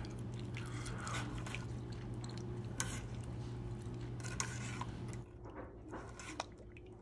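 A ladle stirring and pressing thick chile purée through a stainless steel mesh strainer: soft wet squishing and scraping, with small clicks of metal against the mesh. A steady low hum runs underneath and stops about five seconds in.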